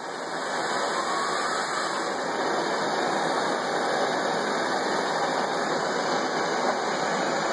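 Handheld gas torch flame burning with a steady hiss as it heats the crank arm where a seized pedal is threaded in, to free the stuck threads.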